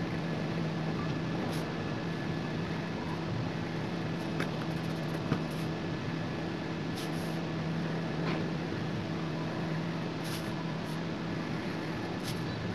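Steady low electrical hum with fan-like room noise, and faint scratches of a pencil drawing over lines on paper now and then, with a couple of light clicks near the middle.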